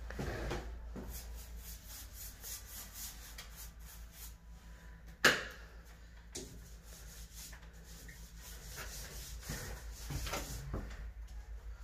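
Faint rubbing and light tapping over a steady low hum, with one sharp knock about five seconds in and a smaller knock about a second later.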